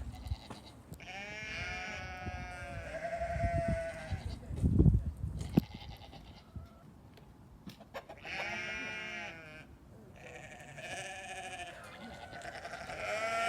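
Farm animal bleating: several quavering bleats spread through the stretch, with a loud low rumble on the microphone about halfway through.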